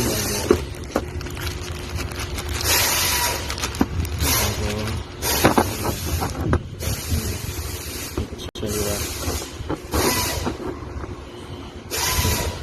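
Four short bursts of hissing air a few seconds apart, with scattered metal clicks and clanks from hand work on the engine, over a steady low hum.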